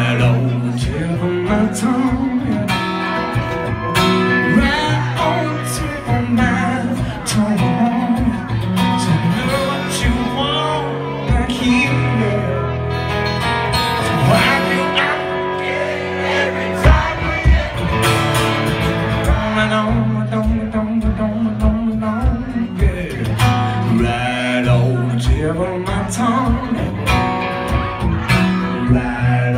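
A rock song performed live: a man singing lead while playing guitar, with sustained low notes underneath.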